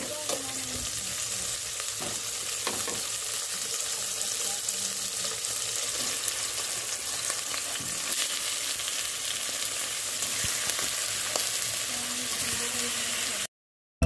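Squid pieces and sautéed onion sizzling in hot oil in an aluminium pot, with a few soft clicks as the squid is dropped in by hand. The sizzle cuts off suddenly near the end.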